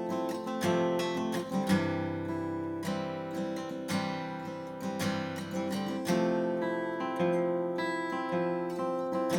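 Martin CEO-7 acoustic guitar being strummed, with a new chord struck about once a second and left ringing.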